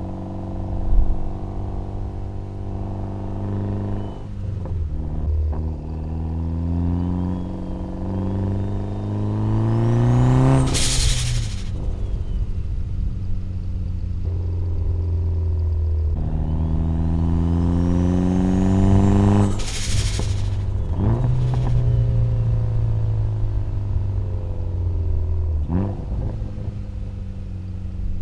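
Mitsubishi Evo X's turbocharged 2.0-litre four-cylinder accelerating gently through the gears: the engine note climbs together with a rising whistle of turbo spool from the AGT 57 mm turbo. A short rushing burst of air comes as the throttle lifts at each shift, twice.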